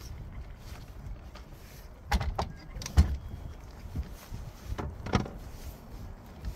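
Bow-mount trolling motor being stowed on a boat's front deck: several sharp metal clunks, the loudest about three seconds in, with wind rumbling on the microphone.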